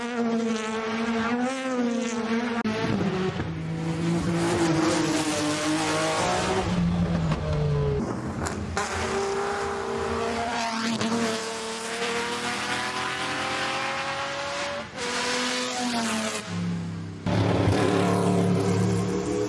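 Race car engines running hard, their pitch climbing and dropping with revs and gear changes, the sound changing abruptly twice as one car or clip gives way to another.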